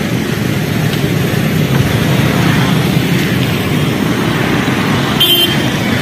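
Steady road traffic noise from motorcycles and cars passing, with a short high-pitched sound about five seconds in.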